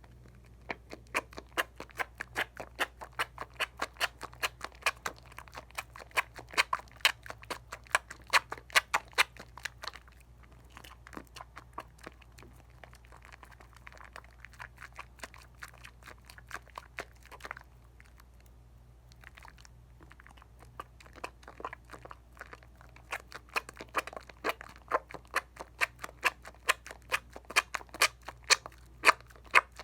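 Wet squishing of Dial coconut bar soap being worked into lather, in rapid rhythmic strokes about three to four a second. The strokes are softer through the middle stretch and stronger again near the end.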